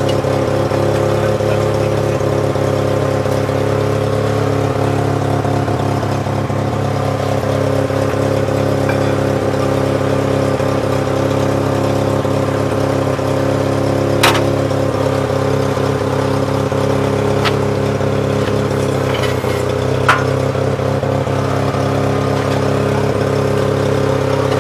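An engine idling steadily, with two sharp knocks about 14 and 20 seconds in.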